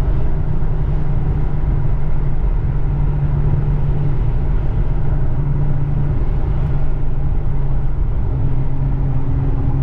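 Nissan 350Z's V6 engine and road noise, a steady low drone heard from inside the car while it is being driven.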